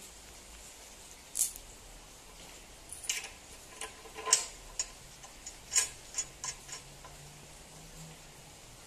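A scattered series of sharp clicks and clacks, about a dozen, from a hand working the mini tiller's handlebar and control lever, the loudest near the middle.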